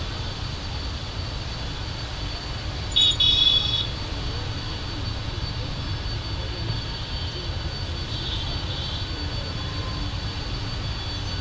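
Jet engines of a four-engined Boeing 747 freighter running at taxi power, heard from a distance as a steady low rumble with a faint high whine. About three seconds in there is a brief loud high-pitched beep.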